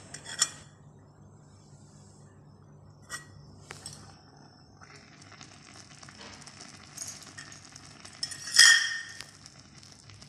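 Small aluminium lid clinking onto a miniature cooking pot, then biryani rice and water sizzling softly in the pot over a small wood fire. A sharper ringing clink of metal on the pot comes near the end.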